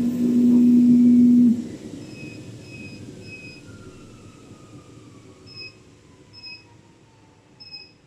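CNC oscillating knife cutter running with a steady low hum, which stops about a second and a half in. Afterwards a faint whine falls in pitch as something winds down, and short high beeps sound several times.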